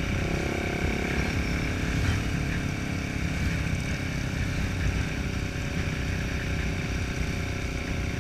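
Motorcycle engine running steadily at cruising speed, heard from the rider's own bike, with wind rushing over the microphone.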